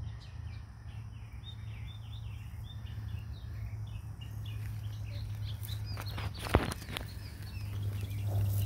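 A small bird chirping over and over, a quick run of short high chirps for the first few seconds, over a steady low hum. A few sharp clicks about six seconds in, the loudest a single knock about six and a half seconds in.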